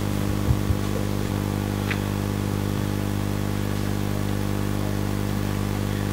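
A steady low hum with evenly spaced overtones, like a small motor or electrical equipment running, with two soft knocks about half a second in.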